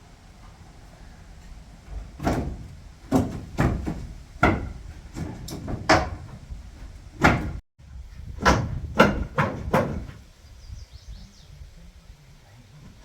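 Demolition work on a wooden building: about a dozen irregular heavy knocks and bangs as framing and boards are struck and knocked loose.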